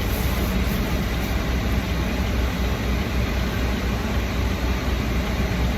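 Steady road and engine noise inside a moving car's cabin: an even low rumble with a hiss above it.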